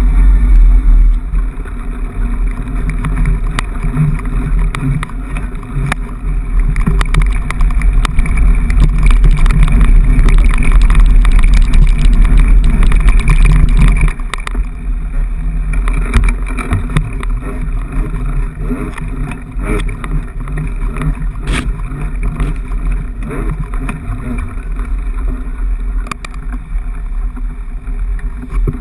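Ride noise on a handlebar-mounted GoPro HD HERO2 as a mountain bike rolls over rough grass: a heavy low rumble of wind and vibration with many small knocks and rattles from bumps. It is louder through the first half and eases a little about halfway through.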